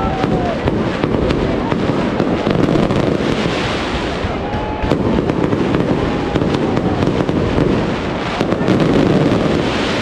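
Mascletà: a dense, continuous barrage of firecracker bangs from a daytime pyrotechnic display, swelling in intensity twice, with a few whistles gliding in pitch over the crackle.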